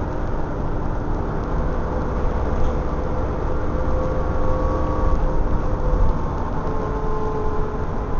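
Dennis Trident 2 double-decker bus on the move, heard from inside: a steady rumble of engine and road with a faint whine over it.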